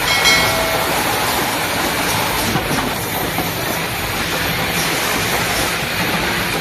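Production-line machinery running with a steady, even mechanical hiss, with faint regular high ticks and a brief tone in the first second.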